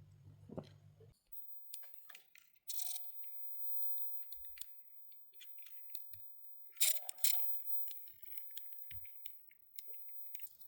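Scattered sharp clicks and short scrapes of a small hand tool chipping away plastic on a 1/64 micro RC car so its wheels can turn freely. A low hum cuts off about a second in, and the loudest scrapes come about two-thirds of the way through.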